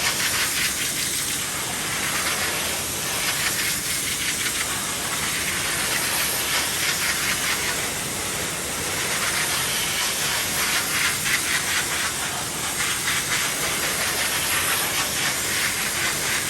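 Sanitech Mark 4 steam cleaner jetting steam onto a metal frying mould: a steady hiss with a fast flutter, swelling and easing a little as the nozzle works.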